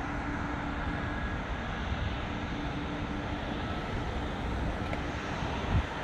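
Distant Airbus A300-600 freighter's turbofan engines at low power as it lines up on the runway: a steady rushing noise with a faint hum that comes and goes. A short low thump comes at the very end.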